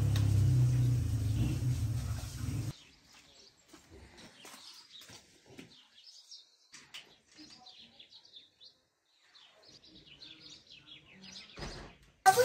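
Water gushing and splashing from a garden hose into a plastic bucket, with a low steady hum under it, cutting off abruptly about three seconds in. Then faint, scattered bird chirps.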